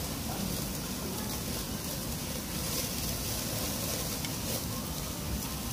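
Meat sizzling on a tabletop yakiniku grill, a steady hiss.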